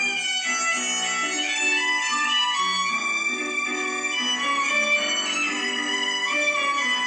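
Music: a violin playing a melody of held notes over a steadily repeating lower accompaniment.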